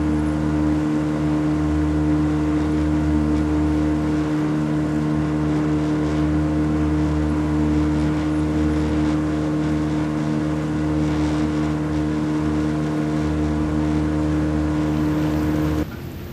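Boat engine running at a steady speed while the boat is underway, with an even, unchanging drone that cuts off suddenly near the end.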